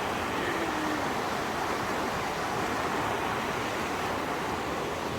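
Steady, even rushing of Burney Falls' falling water, a constant roar with no breaks.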